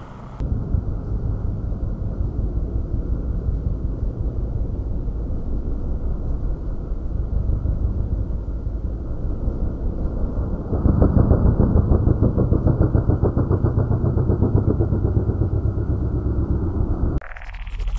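Motorcycle engine running with a fast, even pulse. It gets louder about eleven seconds in and cuts off suddenly near the end.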